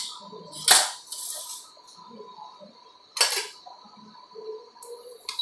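A steel spoon knocking against a stainless steel pan of frying masala, two sharp clinks about a second and three seconds in, with faint scraping and a soft hiss of the spices frying in oil.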